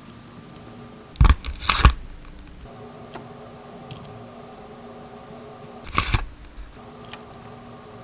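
A sticky tape ball being handled close to the microphone, crinkling and crunching in short bursts: two just over a second in and one about six seconds in, with a few faint clicks between.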